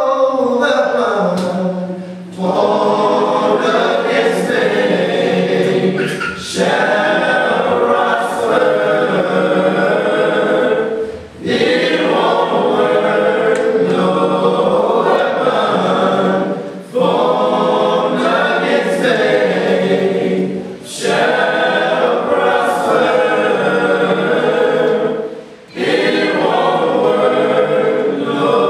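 A church choir singing a gospel song, phrase after phrase, with short breaks between lines about every four to five seconds.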